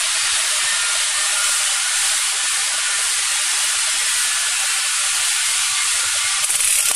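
Steady hiss of compressed air from a pneumatic vulcanizing machine, running evenly throughout.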